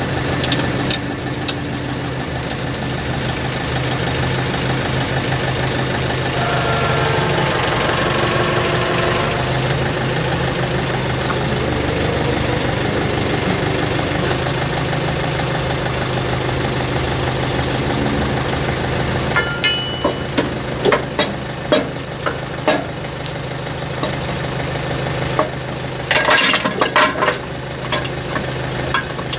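Backhoe's diesel engine running steadily, with a wavering higher tone over it in the middle. In the last third, sharp metallic clanks and clinks come through several times, a cluster of them near the end.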